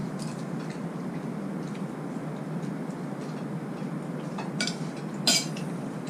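A few light clicks and clinks of tableware at a meal, over a steady low room noise. The sharpest clink comes about five seconds in.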